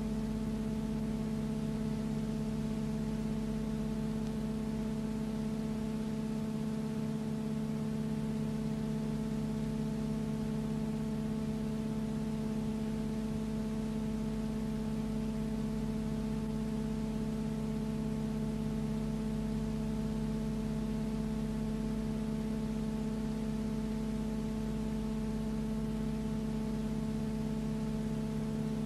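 A steady, unchanging hum made of several fixed tones, the strongest a deep drone, with a light hiss over it.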